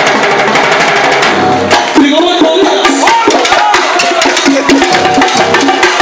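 Live salsa orchestra playing, with timbales, congas and bongos driving a dense rhythm over the band. About two seconds in, a melodic line or voices come in over the percussion.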